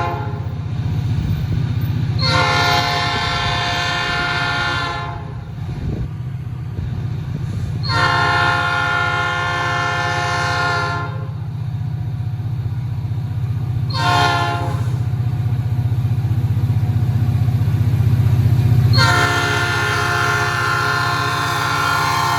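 EMD SD40-2 diesel locomotive working hard up a grade, its engine drone steady underneath, sounding its chord horn in the grade-crossing pattern: two long blasts, a short one, then a long one that runs on.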